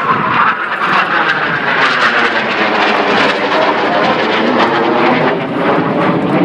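Airplane making a fast, low pass, its engine loud with a rushing sound and its note dropping slightly as it goes by.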